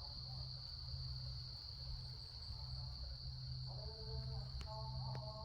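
Insects trilling, one steady high-pitched unbroken tone, over a low rumble. A few soft held tones come in about four seconds in.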